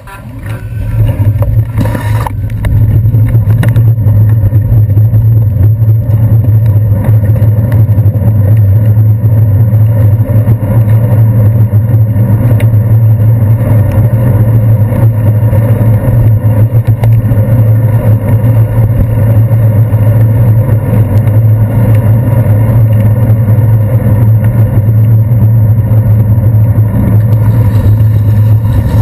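Steady, loud low rumble of wind and road noise on a handlebar-mounted GoPro as a bicycle rides along a wet city street. It rises to full strength a couple of seconds in, once the bike gets moving.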